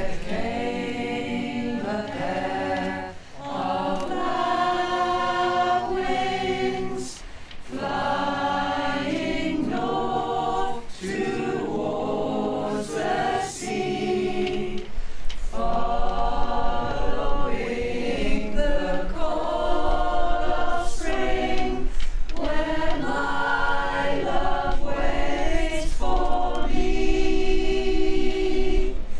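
A choir singing several parts together, in short phrases broken by brief pauses for breath.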